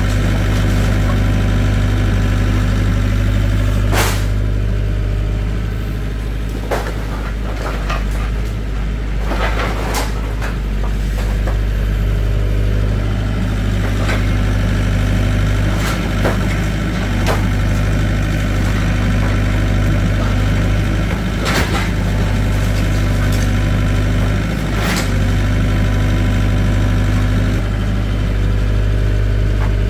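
An engine idling steadily, with sharp knocks every few seconds.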